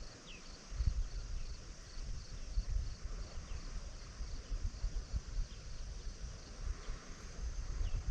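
Wind buffeting the microphone in uneven gusts, over a steady insect chirp that pulses evenly about three times a second.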